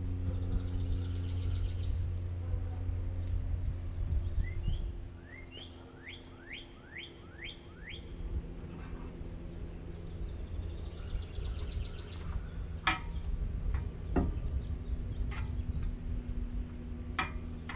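A steady low hum runs under the scene, louder for the first five seconds. About five seconds in a bird gives a quick run of about six chirps. In the last few seconds come several sharp clicks of metal parts as the brake rotor and hub are worked onto the greased spindle.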